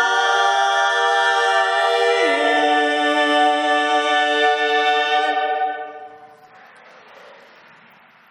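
Female a cappella quartet holding a sustained chord, the lowest voice stepping down a little about two seconds in. The chord stops after about five and a half seconds and the sound dies away.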